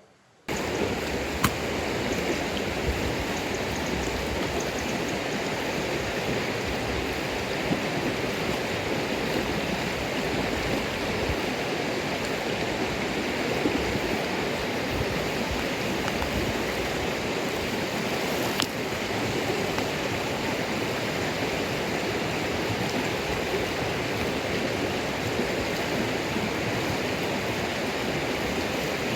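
Steady rushing of running water, with two sharp clicks, one near the start and one about midway.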